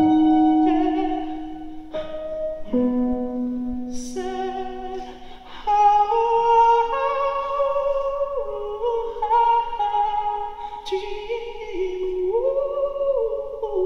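Live band music: a male singer holding long, high wordless notes with vibrato over sustained synth or keyboard notes, the melody stepping slowly from note to note.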